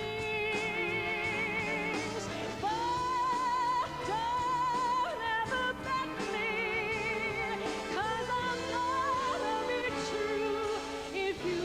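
Woman singing a ballad live into a handheld microphone, backed by a big band with saxophones. Several phrases swoop up into long held notes with a wide, even vibrato.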